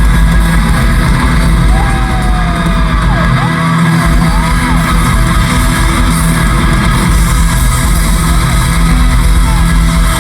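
Live rock band playing loud, with distorted guitars and a wavering lead line that bends up and down a couple of seconds in.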